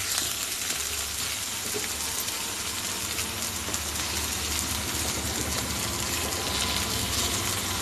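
Whole pohala fish in mustard masala paste sizzling steadily in oil in a frying pan. A steel spatula now and then scrapes the pan as it turns the fish.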